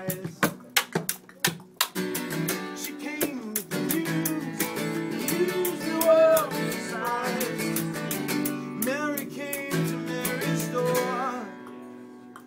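Music with a singing voice over many sharp, quick strokes, dropping away near the end.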